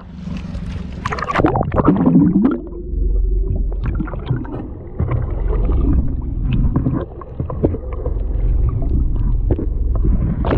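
Muffled underwater sound picked up by a submerged camera: a burst of splashing and bubbling with a swooping gurgle about a second in, then a steady low rumble with scattered small clicks.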